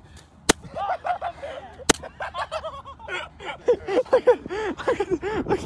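Two sharp smacks in the first two seconds, then loud laughter in quick repeated high-pitched bursts that keeps building toward the end.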